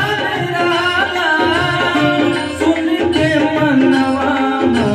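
Devotional bhajan music: a tabla-style drum loop from a Roland XPS-10 keyboard, a harmonium melody and a man singing into a microphone.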